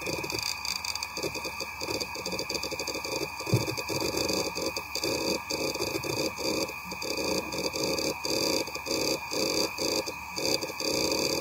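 Hitachi Travelstar HTS421240H9AT00, a 40 GB 4200 rpm 2.5-inch IDE laptop hard drive, copying files: its heads seek in rapid, irregular chattering runs with short pauses, over the steady whine of the spinning platters. One sharper click comes about three and a half seconds in.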